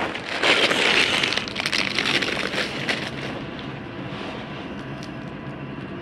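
Twig fire burning hard in a compact Firebox stove, crackling and snapping loudly for about three seconds, then settling into a quieter, steady crackle.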